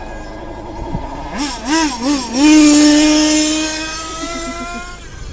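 A small motorbike engine revs unevenly a few times, then holds a high, steady note that slowly fades as it pulls away.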